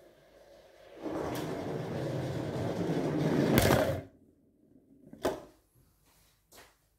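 Rubber-band-powered car on CD wheels rolling fast across a wooden floor, its rumble growing louder as it approaches until it stops abruptly. A sharp knock follows about a second later as the car hits the door at the end of its run.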